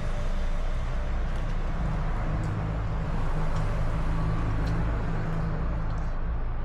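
A steady low hum and rumble of background noise, with a few faint ticks about once a second.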